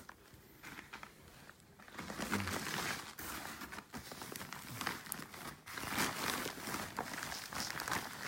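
Helmet packaging being handled: polystyrene foam packing and wrapping rustling and crinkling, with scattered sharp clicks. It is quieter at first and picks up about two seconds in.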